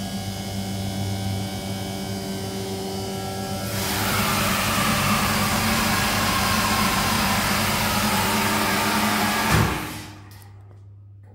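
GMV Oildinamic hydraulic lift power unit running, its motor and pump in the oil tank giving a steady hum. About four seconds in, a louder rushing hiss joins. Shortly before the end it stops with a thump, leaving only a faint low hum.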